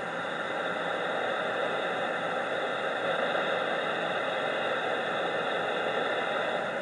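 Steady static hiss from a CB radio receiver between transmissions.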